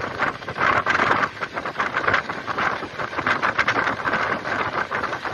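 Passenger train running at speed: steady clatter and rattle of the wheels on the rails, with wind buffeting the microphone in irregular surges.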